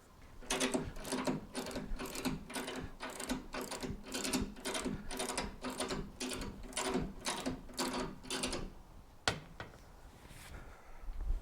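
Motorcycle lift being raised in an even run of pump or ratchet strokes, about two and a half a second, each a metallic clack with a short ring. The strokes stop near the end and one sharp knock follows.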